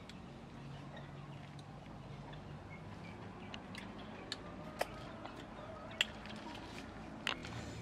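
Faint, scattered sharp clicks of baked duck eggshells being cracked and peeled by hand, over a faint low hum.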